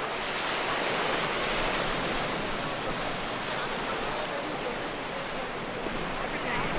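Sea waves breaking and washing up on the beach: a steady rush of surf.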